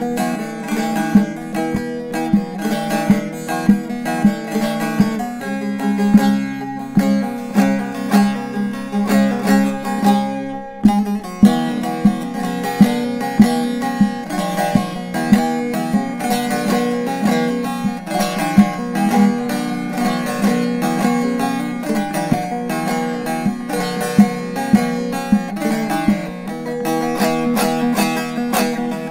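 Solo left-handed short-neck bağlama (saz) with a mahogany bowl, played as a continuous melody of quick picked notes with sharp attacks. The playing briefly drops away about ten seconds in before carrying on.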